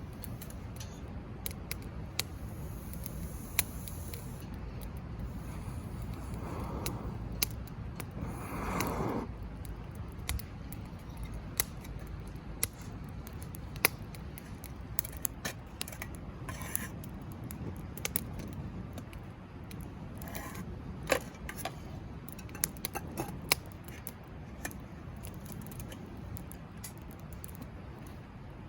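Campfire burning with irregular sharp crackles and pops over a steady low rustle, and a brief whoosh of air about eight seconds in.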